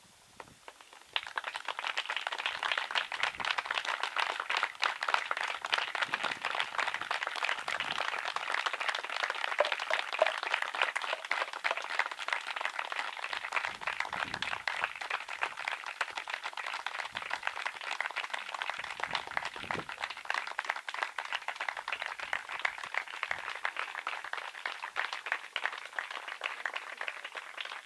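Audience applauding, starting about a second in and going on steadily for nearly half a minute.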